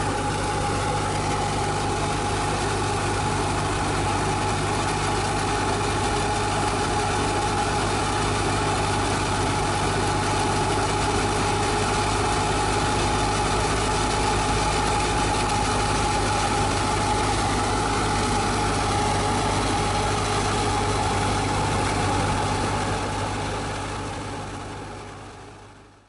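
Tractor-driven wheat thresher running steadily: a tractor engine's drone under a constant whine from the machine, fading out near the end.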